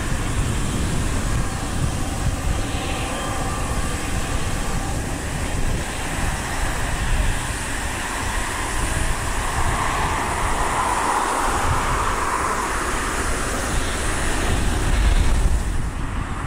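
Jet airliner engines running at an airport: a steady rumble with a broad hiss, which swells briefly about ten seconds in.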